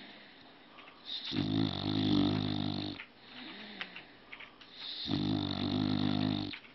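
A sleeping pet snoring: two long, rough snores about three and a half seconds apart, each lasting about a second and a half, with softer breathing between them.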